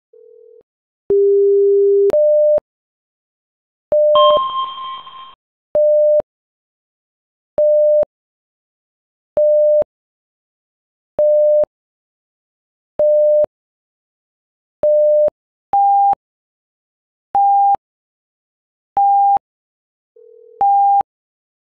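Electronic alert beeps from live seismograph monitoring software: a short low tone and a longer one, then evenly spaced short beeps about every two seconds that step up to a higher pitch about two-thirds of the way through. A brief harsher chime sounds about four seconds in.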